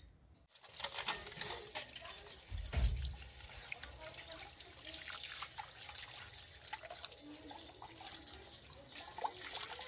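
Tap water running and splashing over a whole raw chicken as it is rubbed clean by hand over a metal bowl, starting about half a second in, with a dull low thump about three seconds in.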